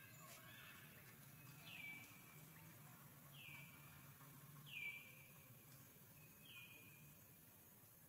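Faint bird calls: four short whistles, each sliding quickly downward, spaced about a second and a half apart over quiet forest background.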